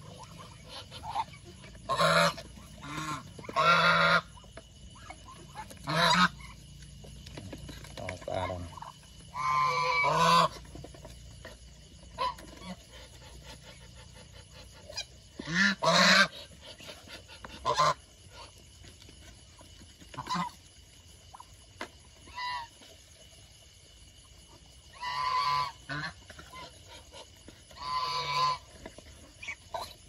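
Domestic geese honking in separate calls every few seconds, some short and some drawn out for about a second, while the flock pecks at grain in a feed tray with light clicks between calls.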